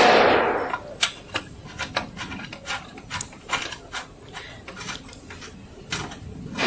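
Background music fades out in the first second. Then come small irregular clicks and scrapes of a metal multi-pin circular connector being pushed into its socket and its threaded collar screwed down by hand, on the back panel of a plasma cutting power supply.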